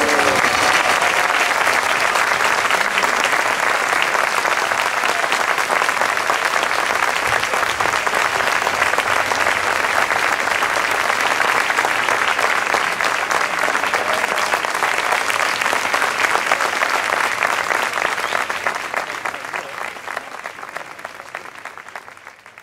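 Large audience applauding steadily, dying away over the last few seconds.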